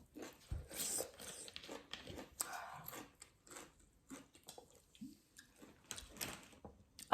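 A person chewing food close to the microphone: irregular short smacking and biting noises.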